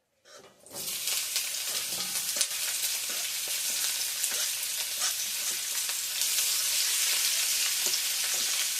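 Food sizzling and crackling in hot oil in a pot while it is stirred. The sizzle starts suddenly about half a second in and then holds steady, with many small pops.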